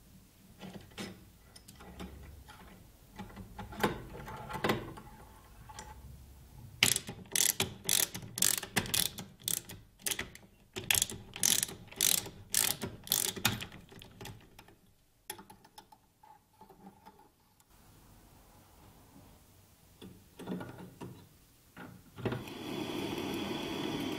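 Metal-on-metal clicks and a fast ratcheting clatter, about two clicks a second, as a brass gate valve is worked loose and unscrewed from a copper water pipe. A steady hiss starts near the end.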